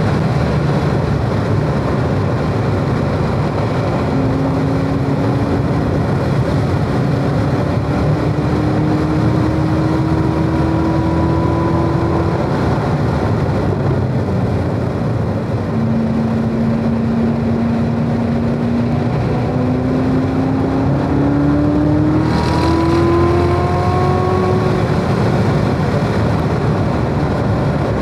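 Chevrolet Corvette Z06's supercharged 6.2-litre V8 pulling in third gear at track speed, heard from inside the cabin over steady tyre and wind noise. The engine note climbs slowly, drops away as the car slows about halfway through, then holds and climbs again.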